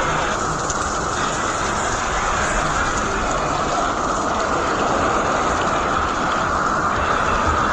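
Steady radio static hiss from a weather radio receiver tuned to a NOAA Weather Radio transmitter, with no speech on the channel.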